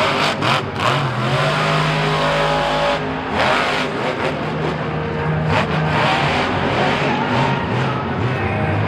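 Monster truck's supercharged V8 engine revving hard, its pitch rising and falling as the throttle is worked. Several short sharp bangs come in the first second.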